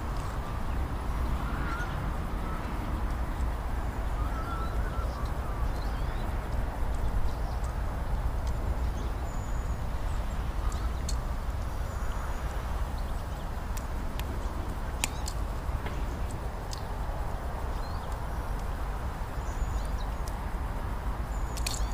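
A few faint, short bird calls over a steady low rumble, with scattered sharp clicks.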